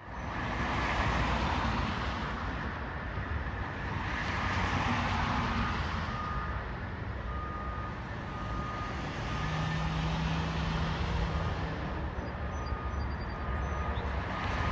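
Vehicles passing on a road, their noise swelling and fading every few seconds, with a reversing alarm beeping faintly in the middle.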